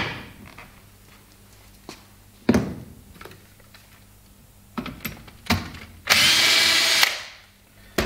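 Cordless drill-driver runs for about a second, backing a screw out of a Brose e-bike motor's ECU cover so the screw can be sealed. Clunks of the drill being picked up and set down on the workbench come before and after.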